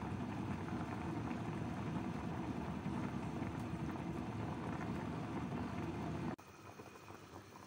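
Pot of herbal chicken soup at a hard rolling boil, a steady low bubbling. About six seconds in it drops suddenly to a much quieter, fine bubbling.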